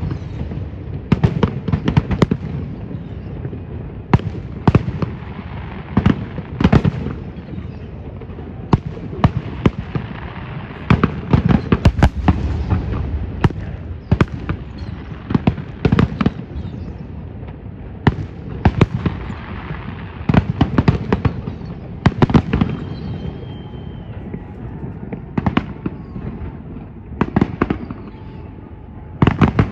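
Aerial fireworks bursting: sharp bangs, often several in quick succession, every second or two, over a continuous low rumble.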